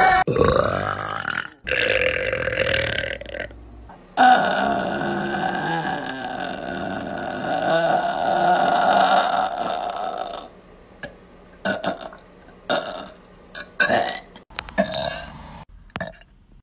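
People belching in turn: a couple of short belches with abrupt cuts between them, then one long belch held for about six seconds, then a string of short burps near the end.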